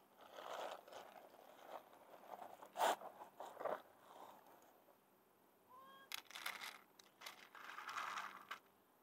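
Faint crunching and clicking of dry cat kibble as a kitten eats from a plastic tray, then a denser rattling and scraping about six to eight seconds in as the plastic tray is handled and refilled with kibble.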